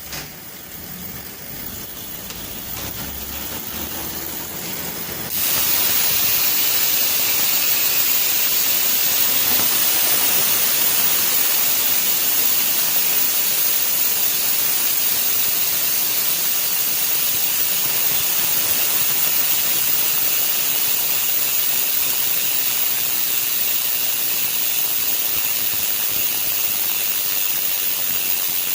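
Hope Pro 2 Evo rear hub freehub buzzing as the wheel freewheels, set up to sound louder. It swells over the first few seconds, jumps louder about five seconds in, then holds steady.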